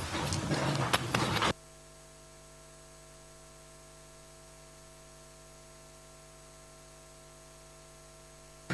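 Handling clicks and room noise on the microphone feed, cut off suddenly about a second and a half in, leaving a steady electrical mains hum with several faint steady whining tones.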